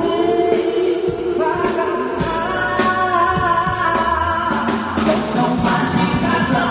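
Pop band playing live with singers, the music carried over the venue's sound system during a soundcheck.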